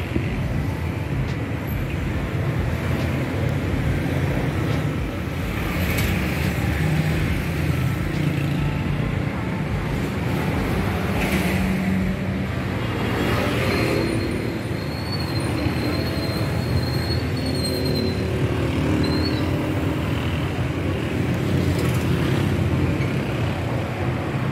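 City street traffic: a steady rumble of cars and other vehicles, with a few passing by more loudly. A thin high wavering tone sounds for a few seconds just past the middle.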